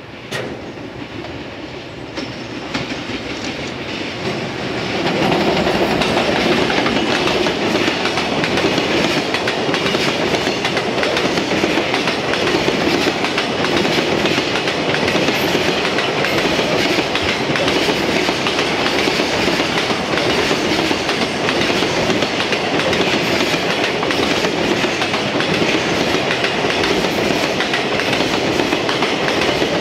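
Freight train hauled by a JR Freight EF210 electric locomotive approaching and passing, then a long string of container wagons rolling past on the rails. The sound swells over the first five seconds, then stays loud and steady.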